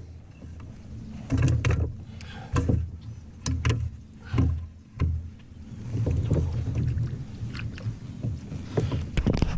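Irregular knocks, bumps and handling noises on a fishing kayak as a caught bass and gear are handled aboard.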